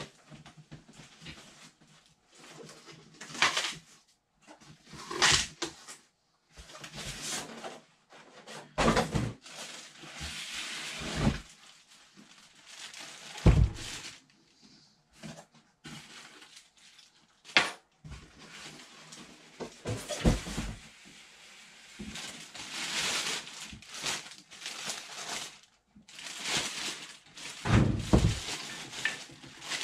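Cardboard box and packing material being handled as a tabletop scroll saw is unboxed: irregular rustling and scraping, broken by several dull thumps.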